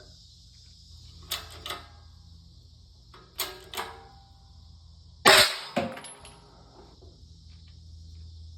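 Metal parts clinking and knocking together with a brief metallic ring, in three pairs about a second and a half to two seconds apart, the last pair the loudest. A steady low hum runs underneath.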